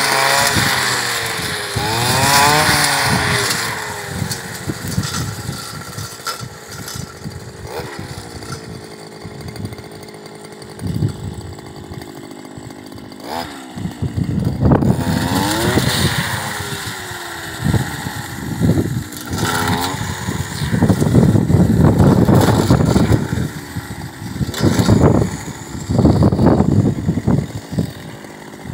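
Petrol brush cutter engine revving up and falling back again and again. In the later part it makes noisy, ragged stretches as the cutting head thrashes through dry grass and weeds.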